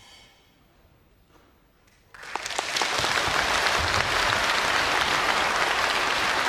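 A faint fading tone and a short hush, then about two seconds in the concert-hall audience starts applauding, a dense, steady clapping that quickly grows loud.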